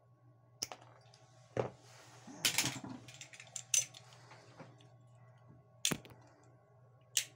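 Wire cutters snipping the ends of a power cord's wires, with hand tools handled on the bench: several sharp clicks a second or more apart and a quick cluster of them about two and a half seconds in, over a faint steady hum.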